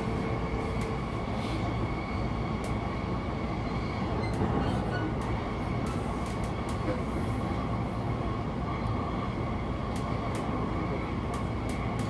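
Cabin running noise of a JR East E233 series electric train's motor car: a steady rumble of the wheels on the rails, with occasional sharp clicks. A steady hum stops about a second in.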